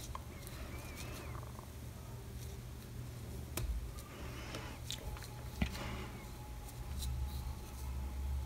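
Faint handling noise of ribbon and a fabric-covered headband: soft rustles and a few light taps as a glued ribbon piece is pressed into place, over a low steady hum.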